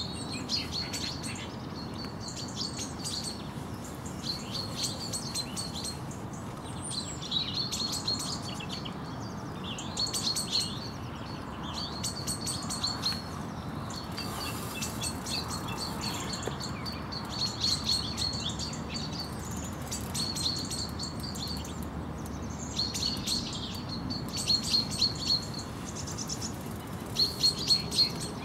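Small songbirds singing short, repeated twittering phrases every couple of seconds, over a steady rush of river water.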